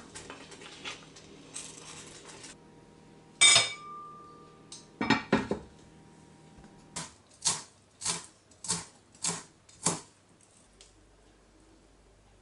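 A wooden spoon stirring thick sauce in a pan, then a glass pan lid set down with a loud clink that rings briefly, and a short clatter. Later come six sharp, evenly spaced knocks about half a second apart.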